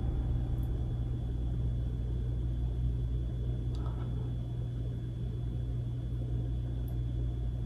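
A steady low rumbling drone with a thin, faint high whine held above it, unbroken throughout.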